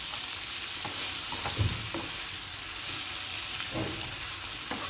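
Sliced onions sizzling in hot oil in a non-stick frying pan while being stirred with a plastic spatula, a steady hiss broken by a few scrapes and knocks of the spatula against the pan. A duller knock comes about a second and a half in.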